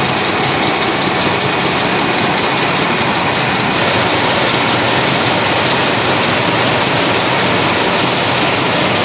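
Rubber-processing machinery running, a loud, steady mechanical din.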